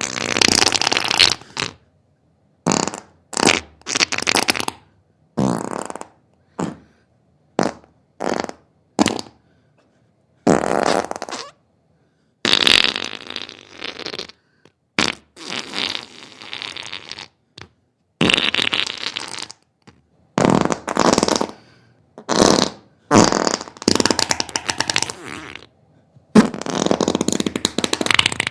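A string of farts, one after another, some short and some drawn out with a rapid flutter, each separated by a brief silence.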